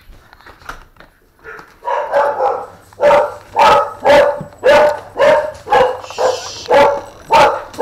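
Dog barking repeatedly at someone coming to the front door, starting about two seconds in and settling into about two barks a second. A whispered "shh" comes near the end.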